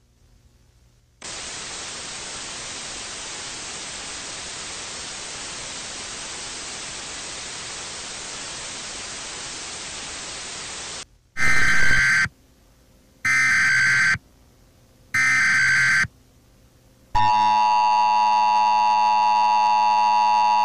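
Television static hiss for about ten seconds, cutting off suddenly. Then come three one-second bursts of electronic data tones, a second apart, followed by a louder steady two-tone alert tone: the header bursts and attention signal of an Emergency Alert System-style broadcast warning.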